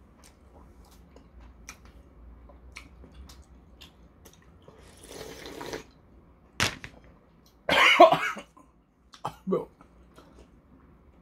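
A man sips udon broth from the bowl with a hissing slurp, then coughs sharply, the loudest cough about 8 seconds in, with a few smaller coughs after it: the Cheongyang chili in the broth catches his throat.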